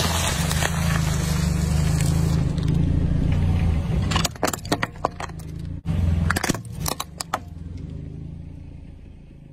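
Car engine idling low as the tyre rolls slowly over objects. For the first couple of seconds a packet of wafer biscuits crunches and crinkles under the wheel. Then come two bursts of sharp cracks and snaps as hard plastic breaks: a pair of sunglasses and a plastic yo-yo being crushed.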